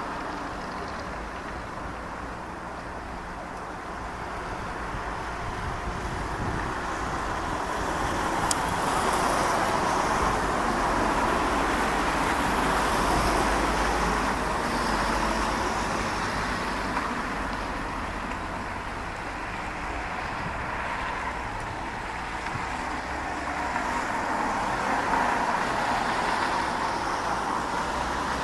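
Steady outdoor road traffic noise that swells to its loudest around the middle and eases off again, with a faint click about eight seconds in.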